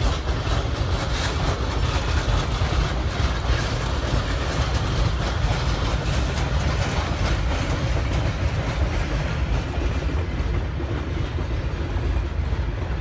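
Nevada Northern No. 40 steam locomotive working past at close range with a train of boxcars: steady exhaust and the cars' wheels clattering over the rails. The sharper, higher part of the sound fades over the last few seconds as the train draws away.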